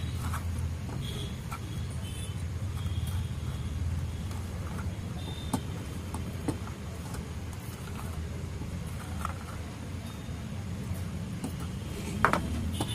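Steady low background rumble, with a few faint clicks as work goes on at the circuit board and one sharper knock near the end as the inverter's circuit board is lifted and moved.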